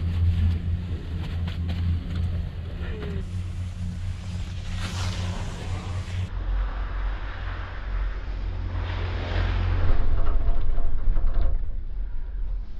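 Chairlift ride heard from the chair: a steady low mechanical rumble with wind on the microphone. It grows louder from about nine seconds in, as the chair passes over a lift tower.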